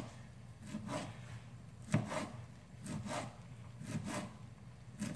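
Kitchen knife chopping fresh cilantro on a plastic cutting board: slow, uneven knocks of the blade on the board about once a second, the loudest about two seconds in.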